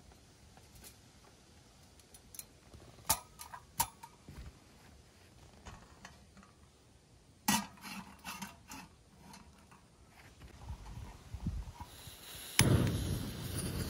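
Light metal clinks and a knock as a camp stove and a metal grill rack are set down. Near the end a Coleman propane single-burner stove lights with a click and then runs with a steady, loud rush of gas flame.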